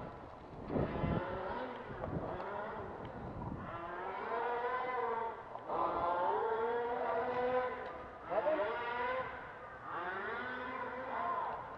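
Motor vehicle engine running and revving, its pitch rising and falling in several runs of a second or two with short breaks between them.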